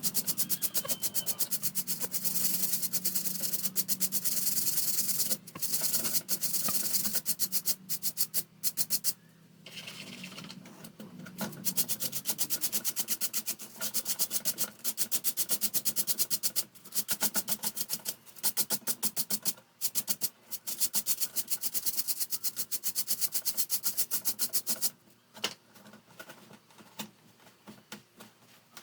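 Rapid, rhythmic scrubbing strokes on fan parts being cleaned, in runs of a few seconds with short pauses, and quieter scattered strokes near the end.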